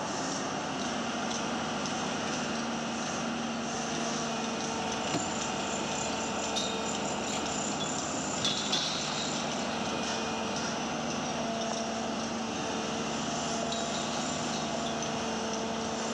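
Tata Hitachi tracked excavator's diesel engine running steadily as it works against a concrete wall, with a few short knocks about five and eight and a half seconds in.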